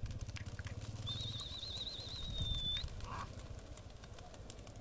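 A high, rapidly warbling whistle about a second in, lasting under two seconds, over open-air background noise. A low, steady motor hum fades out in the first second or so.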